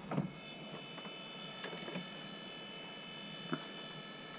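A few light clicks and taps as a laptop motherboard is handled and shifted on a plastic work mat, over a steady faint high-pitched electronic whine.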